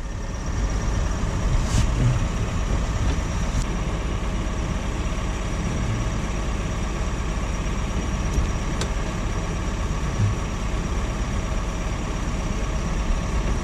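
A steady mechanical drone, like a machine or engine running, with a constant high whine and a few faint clicks.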